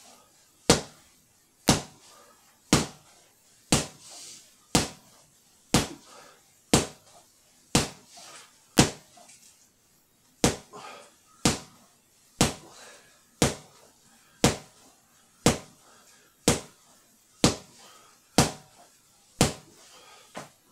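Jabs with MMA gloves worn over gel inner gloves landing on a freestanding punch bag: one sharp slap about every second, with one slightly longer pause just before halfway.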